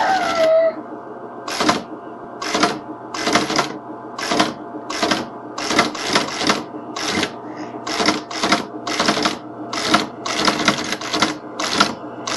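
Teletype Model 14 teleprinter running: its motor hums steadily while the printing mechanism clatters in short, irregularly spaced strokes, about one to two a second. There is a brief falling whine at the start.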